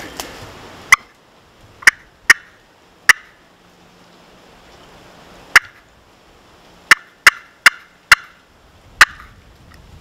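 Wild turkey clucks: about ten short, sharp, loud notes at uneven spacing, in a loose series like a hen's cutting.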